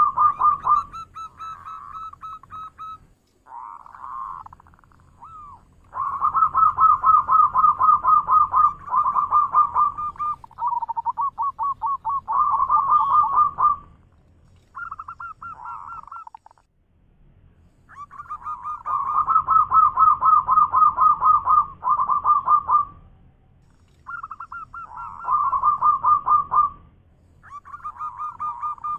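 Zebra dove (perkutut) singing its manggung song: long runs of rapid staccato coos at about one pitch, in bouts of a few seconds separated by short pauses.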